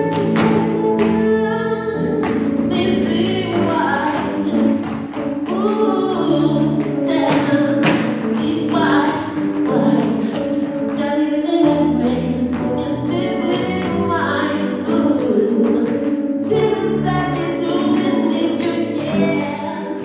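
A song with a singing voice over sustained instrumental chords, played at a steady loud level.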